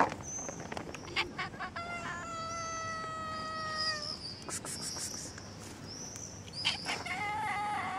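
Long-haired stray cat meowing: one long drawn-out call about two seconds in, then a wavering meow near the end. A sharp click at the very start.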